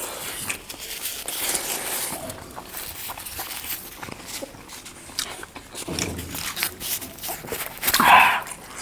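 Close-up eating sounds: chewing and mouth smacking with many small clicks, and one brief louder mouth sound near the end.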